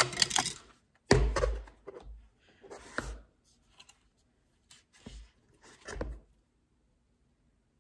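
Handling noise from an iPad and its cardboard box: a series of about six short knocks and rustles, some with a dull thump, over the first six seconds.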